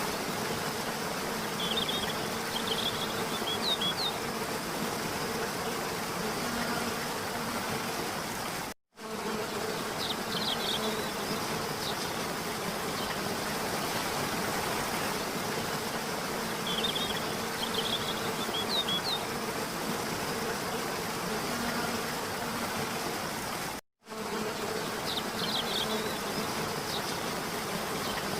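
Steady rush of a waterfall, with short high chirps coming in about every seven or eight seconds. The sound cuts out for an instant twice.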